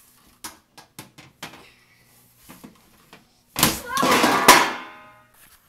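A few light knocks and taps from handling things on a tiled floor, then, about three and a half seconds in, a sudden loud yell that lasts over a second and fades away.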